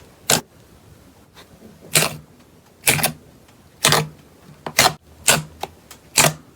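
Slime being worked with short, sharp pops about once a second, a few coming in quick pairs near the end.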